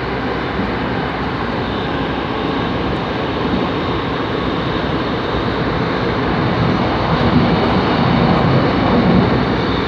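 Seoul Subway Line 9 express train running at speed through a tunnel, heard from inside the car: a steady rumble of wheels on rail and running gear, growing a little louder near the end.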